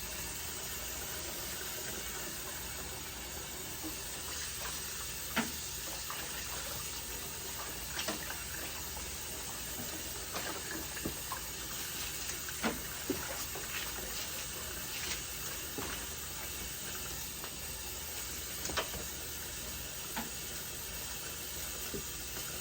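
Tap water running steadily into a sink, with scattered short clicks and knocks.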